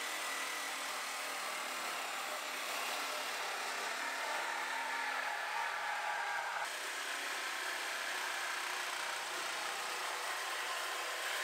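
Corded electric metal-cutting power tool running steadily as it cuts a sheet-metal body panel. The sound changes abruptly a little past halfway.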